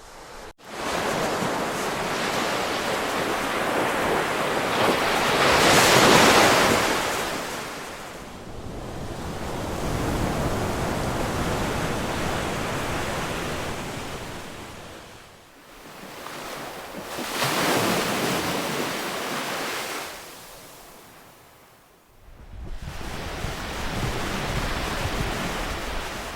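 Ocean surf: waves breaking and washing in, rising and falling in slow surges every several seconds, the biggest about six seconds in. The sound cuts out abruptly for a moment about half a second in.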